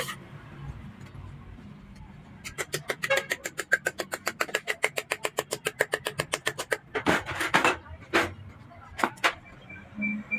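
Small hammer tapping on a hand-held brass radiator filler neck: a quick, even run of light taps, about nine a second, for several seconds, then a handful of heavier, separate blows.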